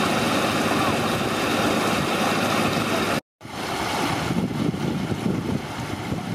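Floodwater rushing steadily over a flooded bank, a loud even wash. The sound cuts out completely for a moment about three seconds in, then comes back rougher and more uneven.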